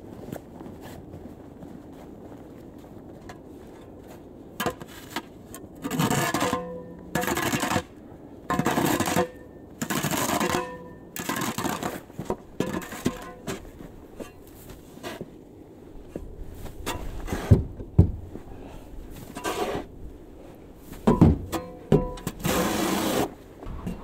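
Snow shovel scraping snow off a path in repeated strokes, roughly one a second, some with a faint ringing note from the blade. A few dull knocks come between the strokes.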